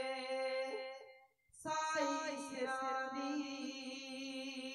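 Male kavishri singers holding long, drawn-out sung notes. The note fades out about a second in, and after a short break a new long note begins, wavering in pitch at first and then held steady.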